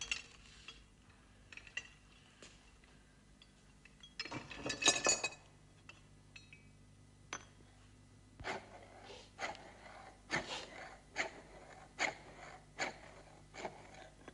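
Hand tools clattering on a workbench about four to five seconds in, then a steady run of sharp clinking taps from a hand tool striking, about one every two-thirds of a second.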